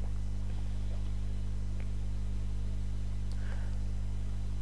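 Steady electrical mains hum with faint hiss from the recording setup, with a couple of faint clicks.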